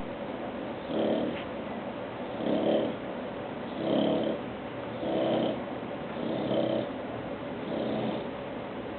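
Bulldog snoring with each breath: six rasping snores in a row, about one every second and a half.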